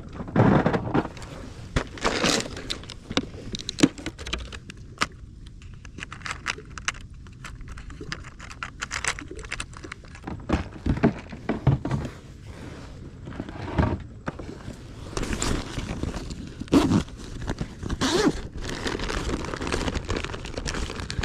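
Handling noise from a plastic Plano tackle tray: clicks and knocks of the lid and compartments, and small metal hooks and tackle rattling as they are picked through. Near the end, cloth rubs against the microphone.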